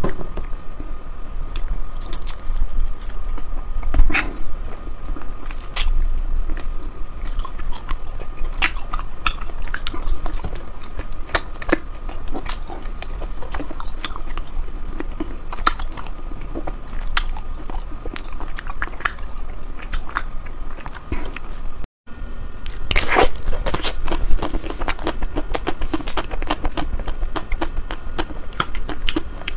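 Close-up biting and chewing of ice cream, with many irregular crisp crunches. There is a split-second gap about three-quarters of the way through.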